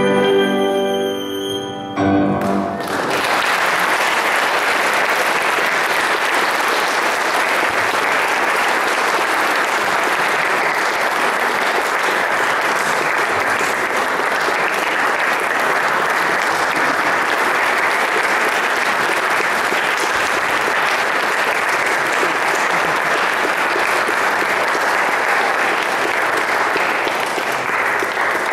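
Violin and piano holding a final chord that ends about two seconds in, followed by an audience applauding steadily.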